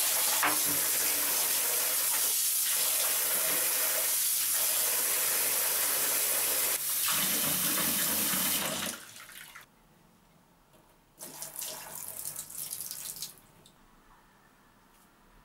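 Tap water running into a plastic basin of soapy water in which a demagnetizer's plastic housing is being washed. The flow stops about nine seconds in, and a shorter burst of similar noise follows a couple of seconds later.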